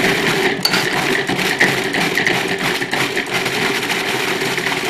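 Food processor running steadily, its blade churning a thick date and pineapple mixture toward a creamy texture.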